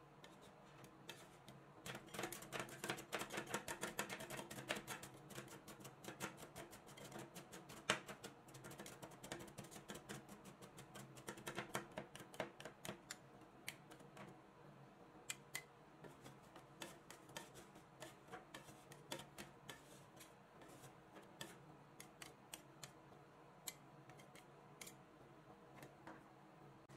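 Two metal spatulas chopping striped wafer rolls and caramel sauce on a rolled-ice-cream cold plate: rapid clicking taps of the blades on the metal plate. The taps come thick about two seconds in and again around eleven seconds, then thin out to scattered taps.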